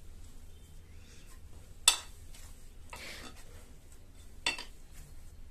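Ceramic plate clinking sharply twice, about two and a half seconds apart, as hands work a lump of mawa dough on it, with a soft scrape of hand and dough across the plate between the clinks.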